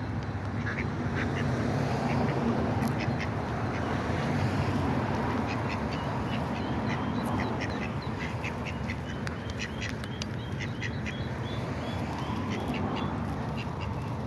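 A group of ducks quacking repeatedly, many short calls overlapping, over a steady low background noise.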